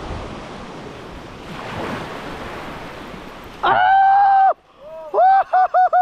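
Small waves washing on the beach, with wind on the microphone. About three and a half seconds in, a man lets out a long, loud, high-pitched yell, and then four or five quick short shouts.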